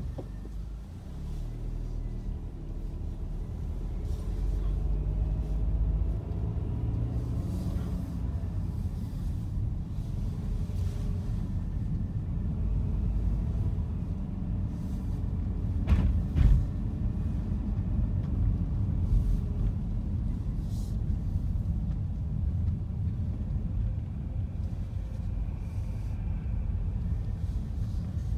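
Car's engine and road noise heard from inside the cabin: a steady low rumble, with the engine note climbing over the first few seconds. A single sharp thump about halfway through.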